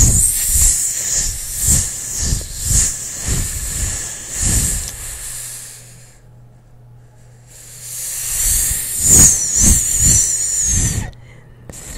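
Long drawn-out whispered "sss" hissing close into a microphone, two long hisses with a short pause between them, with soft low puffs of air against the mic.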